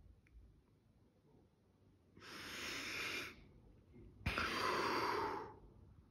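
A man breathing heavily, twice, each breath about a second long; the second is louder and starts abruptly.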